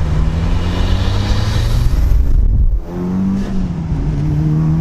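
Mitsubishi Evo 6.5 Tommi Makinen edition's turbocharged 4G63 four-cylinder accelerating hard with a rising whistle, then a brief lift for a gear change about two and a half seconds in before the engine pulls steadily again.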